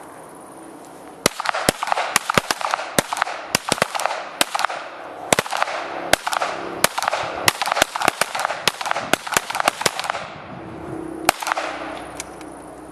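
Pistol shots from several shooters firing together in a timed string: a quick, irregular run of many overlapping sharp cracks, each with a short echo, starting about a second in and lasting about nine seconds, then one last single shot about a second after the rest.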